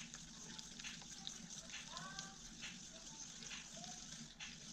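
Faint whimpers and squeaks from one-month-old Belgian Malinois puppies, several brief calls, over a low steady hum and a few light clicks.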